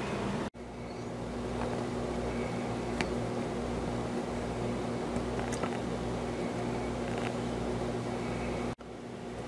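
Steady mechanical hum, a low drone with a constant tone, like a fan or air-conditioning unit running. It cuts out sharply for a moment twice, about half a second in and near the end, where the video is edited.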